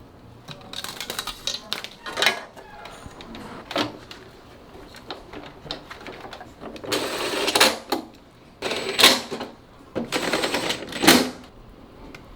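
Plastic air conditioner parts and panels clicking, knocking and rattling as they are fitted back together, with a few longer rattling bursts in the second half.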